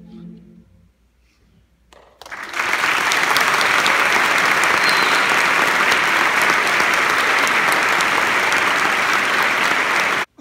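Audience applauding loudly, starting about two seconds in after the choir's last sung chord fades away, then cutting off suddenly near the end.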